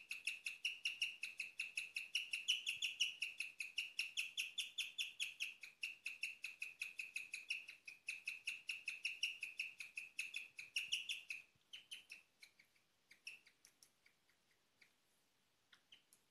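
Guinea pig chirping: a fast, even string of high, bird-like chirps, several a second, rising in pitch for a while early on. A few seconds before the end it breaks off into a few scattered faint chirps.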